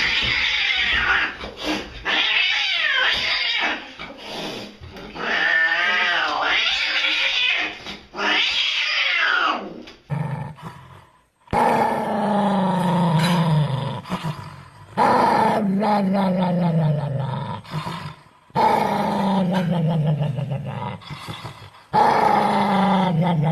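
An angry cat growling and yowling with a wavering pitch. From about eleven seconds in come four long, low growls, each falling in pitch.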